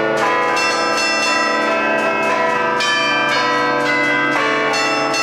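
Twelve tuned church bells played from a lever keyboard in the Lombard 'allegrezza' festive style: a melody of struck bell notes, about two a second, each ringing on into the next.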